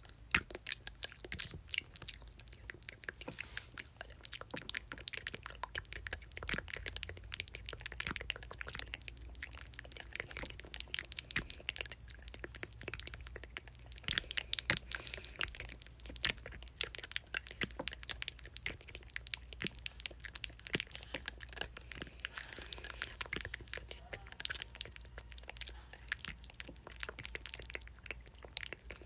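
Close-miked mouth sounds: a dense, irregular run of wet clicks, pops and smacks from tongue, lips and saliva, many per second.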